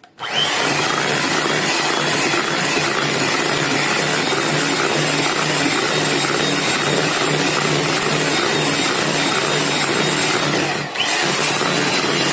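An electric hand mixer switches on about half a second in, its beaters whipping cream and thick cooked milk batter together in a plastic bowl. The motor runs steadily, dips briefly near the end, then carries on.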